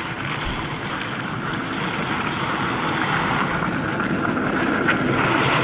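Steady rushing noise of a longboard rolling downhill on asphalt, wheel roar mixed with wind, growing gradually louder.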